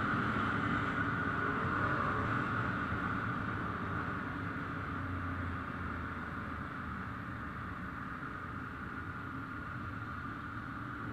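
Ducati motorcycle engines running with a low rumble that fades gradually as they move off after a louder pass.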